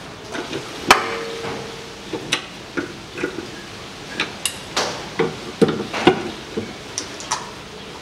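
Metal clinks and knocks of a 17 mm socket wrench being fitted to and worked on the nut of a rear anti-roll bar end link. There is one sharp clank about a second in that rings briefly, then a string of irregular lighter clicks.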